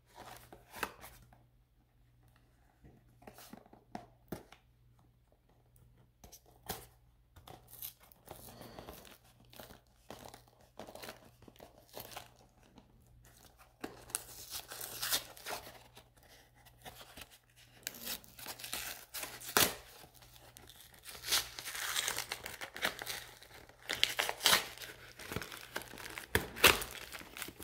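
A thin cardboard trading-card box being torn open by hand, with cardboard tearing, crinkling and handling clicks. It starts as scattered small rustles and snaps, then about halfway through turns into longer, louder stretches of tearing and rustling.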